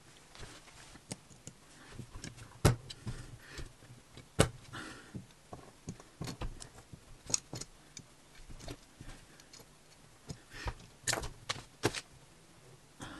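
Irregular clicks and taps of small plastic LEGO pieces and a hand-held stick knocking against the bricks and the card-covered tabletop during assembly, with two sharper clacks about three and four and a half seconds in.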